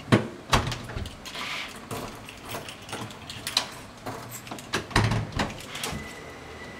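Apartment front door being shut and locked with a key: two sharp knocks of the door and latch right at the start, small clicks and rattles of the key and lock through the middle, then a few more knocks about five seconds in.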